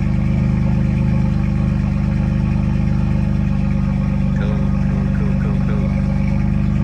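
BMW M4's S55 twin-turbo inline-six idling steadily after a start-up, with a few faint short chirps about halfway through.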